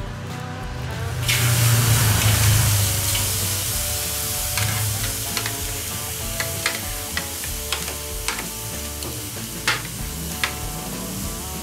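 Flank steak laid on a hot charcoal grill grate, starting a loud sizzle about a second in that settles to steady searing with scattered pops and crackles of fat. Background music plays throughout.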